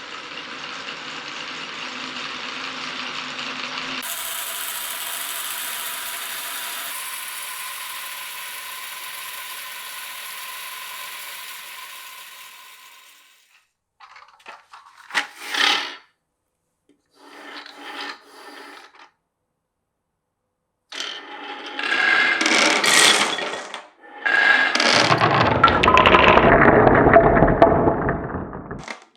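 Glass marbles rolling along the tracks of a wooden marble run: a continuous rolling sound for about thirteen seconds that changes character about four seconds in, then short separate runs of rolling and clatter, the loudest two near the end.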